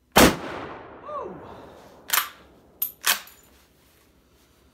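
A Mannlicher M1895/30 Stutzen rifle fires a round of 1938 8x56mmR ammunition: one sharp, loud shot with a long echo, and a brief falling whine about a second in. About two seconds after the shot come several metallic clacks as the straight-pull bolt is worked back and forward.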